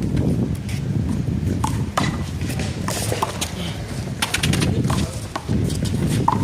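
Sharp slaps and smacks from a one-wall handball rally: a small rubber ball struck by hands, hitting the wall and bouncing off the court. There is a quick flurry of hits about four seconds in, all over a steady low rumble.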